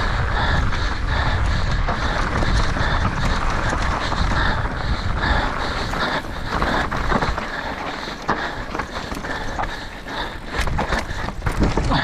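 Nukeproof Mega mountain bike racing down a rough, rocky trail. Wind rush on the helmet camera's microphone and the rider's heavy breathing are mixed with tyres crunching over stones. About two thirds through the wind rush eases and sharp knocks and rattles from the bike stand out.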